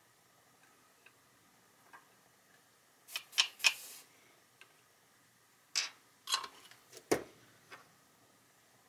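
Faint ticks at first, then two clusters of sharp clicks and clatters as a reel of solder and small soldering tools are handled and set down on the workbench.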